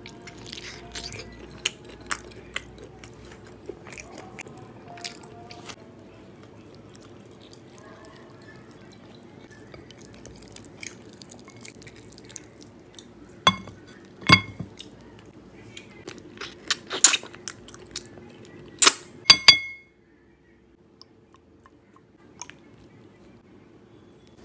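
Wet eating sounds of slow-cooked mutton shank (nalli nihari) being bitten, chewed and pulled apart by hand, with many small clicks and several loud, sharp smacks or knocks between about halfway and three-quarters through. A steady low hum runs underneath, and the sound drops away abruptly about four-fifths of the way in.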